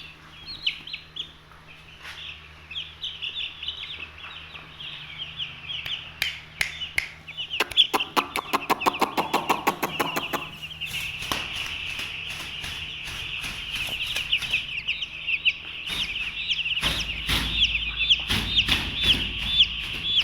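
A brooder full of young chicks peeping continuously: many short, high, falling cheeps overlapping. A fast run of lower, rapidly repeated calls comes about eight seconds in, and a low rumble near the end.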